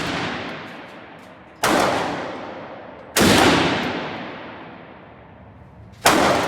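Single gunshots fired at a shooting range: three sharp shots, about a second and a half and then three seconds apart. Each trails off in a long echo lasting more than a second.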